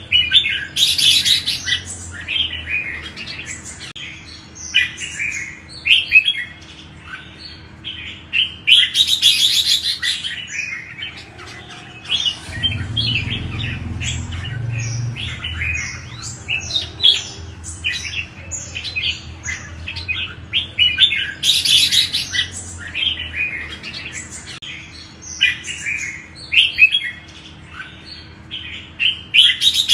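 Red-whiskered bulbul singing: a run of quick, chirpy whistled phrases, broken about every ten seconds by a louder, harsher burst of chattering notes. A faint steady hum lies underneath, with a low rumble around the middle.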